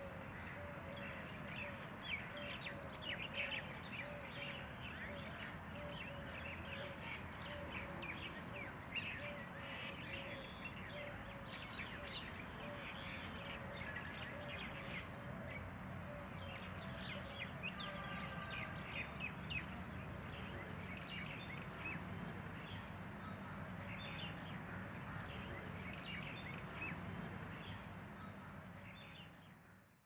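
Many birds chirping and singing, with a low note repeated about twice a second through the first third, over a steady low hum. Everything fades out at the very end.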